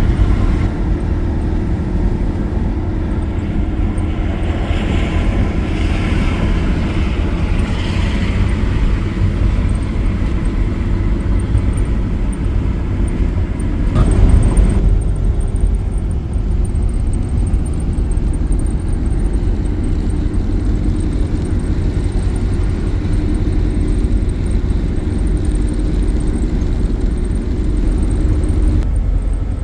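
Steady road rumble of engine and tyres inside a Class C motorhome driving on the highway, with air coming in through an open window. There is a brief louder swell about halfway through.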